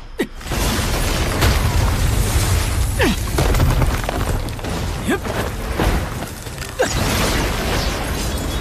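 Animated magic-battle sound effects: a dense rush of noise over a deep rumble as ice shards and ice arrows fly, with short falling whooshes about three times.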